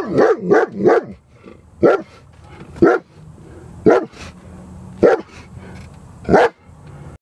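German Shepherd barking, a quick run of three barks and then five single barks about a second apart.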